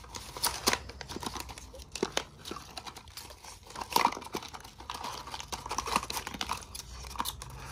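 A small handmade paper packet, wrapped in tape, being worked open by hand: the paper and plastic tape crinkle and rustle in short, irregular crackles.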